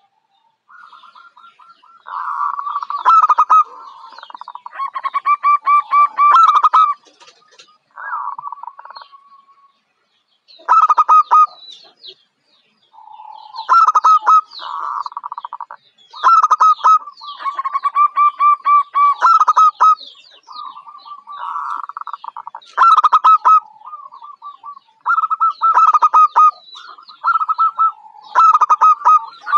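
Zebra dove (perkutut) cooing: repeated bouts of rapid staccato coos, each bout one to three seconds long with short pauses between them.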